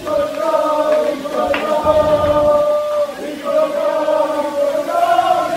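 A crowd of football fans chanting in unison, holding long sung notes, with a short break about three seconds in.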